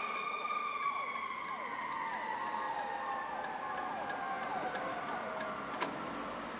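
Fire engine siren winding down, one long wail falling slowly and steadily in pitch over about five seconds. A sharp click comes near the end.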